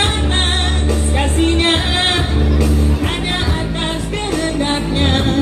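A solo voice singing a melody with wide vibrato over backing music with a sustained bass line and held chords.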